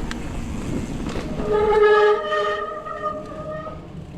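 Rolling tyre noise, then a mountain bike's disc brakes squeal in one steady, horn-like tone for about two seconds as the bike slows.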